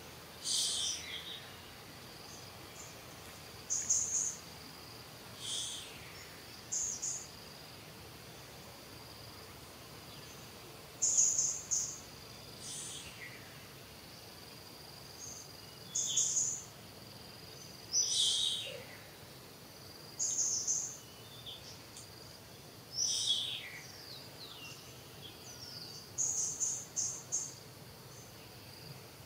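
Birds chirping in short high bursts every one to three seconds, some calls sliding down in pitch, over a steady high-pitched insect drone.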